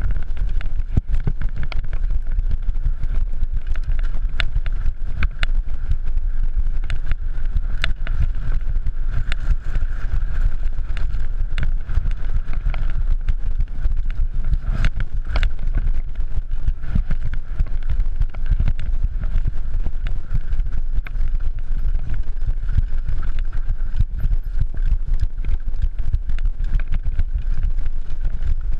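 Downhill mountain bike ridden fast over a rough dirt and rock trail, with a constant low rumble of wind on the microphone and frequent sharp rattles and knocks as the bike hits bumps.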